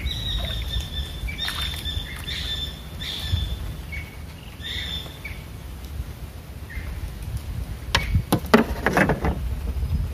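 Short, repeated bird chirps over wind rumble on the microphone. About eight seconds in comes a loud burst of splashing and knocking as a hooked grouper is brought up to the small boat.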